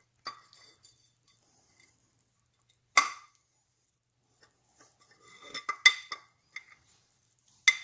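Metal engine parts clinking and knocking against each other as they are handled and test-fitted: a few separate sharp clinks, the loudest about three seconds in, then a quick cluster of them a little before the end.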